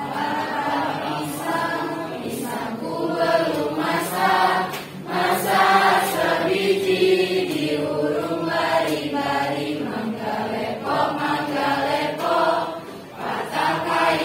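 A class of schoolchildren, girls and boys, singing a song together as a group.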